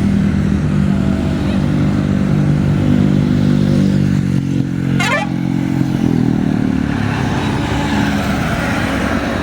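Bus diesel engine running close by, its pitch rising slightly about six seconds in. A brief sharp rising squeal cuts across it about five seconds in.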